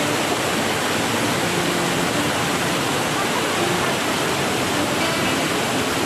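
Small waterfall cascading over rocks: a steady, unbroken rush of white water.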